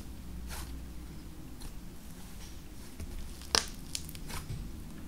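Slime thickly loaded with Snow Wonder instant snow squeezed in the hand, giving soft squishes and small crackling clicks, with one sharper click a little past halfway.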